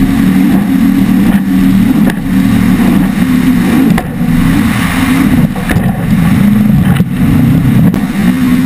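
Twin Mercury Racing 1350 V8 engines of an MTI 48-foot catamaran running at high speed: a loud, steady engine drone that wavers in pitch, over rushing water and wind. Several sharp knocks through it, and a burst of hissing spray about halfway through.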